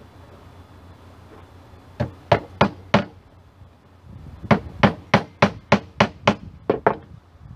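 Hammer driving a finishing nail into a treated pine board: four blows, a short pause, then a quicker run of about nine blows, roughly three a second.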